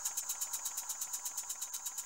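Antique English model stationary steam engine running steadily on steam, its exhaust chuffing in a quick, even rhythm of about ten hissy puffs a second.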